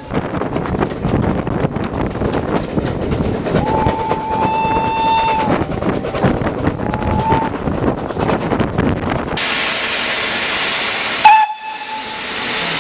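Steam locomotive whistle sounding one long blast of about two seconds, then a short second toot, over the running noise of a moving train. After an abrupt change comes loud, steady steam hiss, broken by a sudden loud burst and a brief whistle note.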